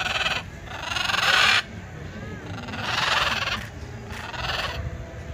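Blue-and-yellow macaw giving harsh squawks, four in a row, the second the loudest and cut off sharply.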